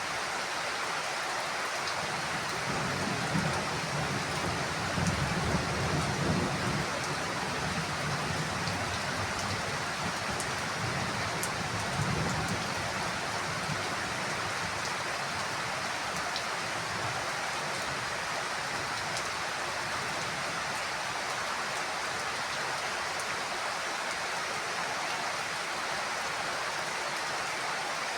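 Heavy rain falling steadily, with a low rumble of thunder rolling through for several seconds in the first half.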